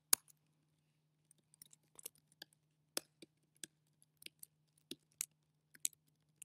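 Computer keyboard typing: single keystrokes at an uneven pace, with a pause of about a second near the start.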